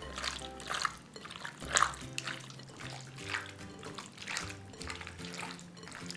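Hands squeezing and mixing raw boneless chicken thigh pieces, a run of irregular wet squelches, the loudest a little under two seconds in.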